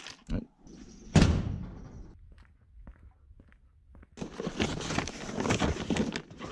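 A door shutting with a loud thunk about a second in, followed by a few small clicks. From about four seconds in comes a steady run of footsteps and rustling.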